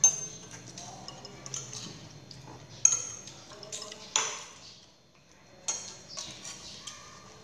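Metal spoons clinking and scraping against ceramic bowls and plates as food is served, with several sharp clinks that ring briefly.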